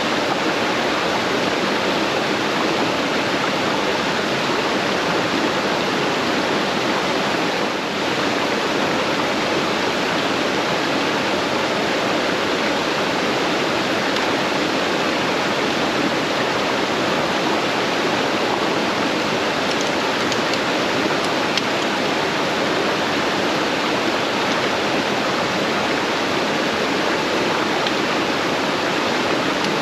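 Creek water rushing steadily, loud and even, with a few faint ticks about two-thirds of the way through.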